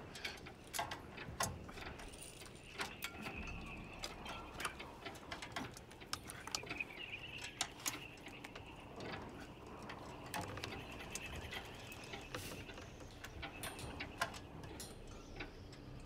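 Many irregular small clicks and light knocks, spaced unevenly, over a faint low rumble, with a thin wavering creak-like tone in places.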